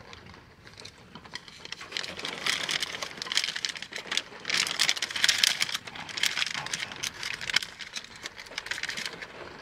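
Plastic food packet crinkling and rustling as it is torn open and handled, with edamame pods rattling into a wooden bowl; busiest about halfway through.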